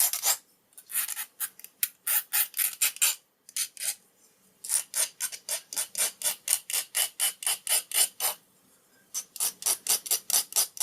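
Hand file rasping along the edge of a thin metal padlock shim in quick back-and-forth strokes, about five a second, in three runs with short pauses between. It is taking off the shim's sharp edges.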